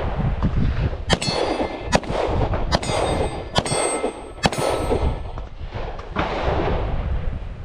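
Five pistol shots fired while walking forward, a little under a second apart, with a metallic ringing after several of them.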